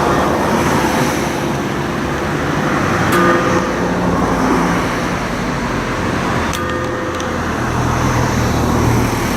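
A church bell struck by hand with a tool rather than swung, clanging about every three and a half seconds, twice here, each stroke ringing on and fading, over steady passing road traffic.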